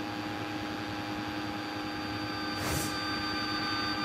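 Steady drone of a light aircraft's engine and propeller heard inside the cabin, with a brief rush of noise about two-thirds in.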